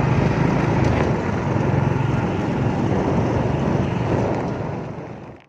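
A vehicle's engine running steadily with road and wind noise while on the move, fading out over the last second.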